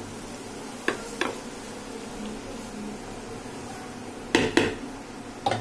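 Spatula knocking and scraping against a kadai while tossing stir-fried noodles: five sharp clacks, a pair about a second in, a louder pair at about four and a half seconds, and one more near the end, over a steady low hum.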